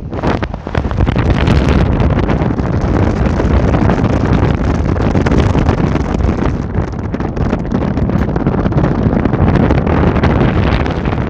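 Wind buffeting the microphone aboard a moving river boat, a dense steady rumble heaviest in the low end, with the boat's engine running underneath.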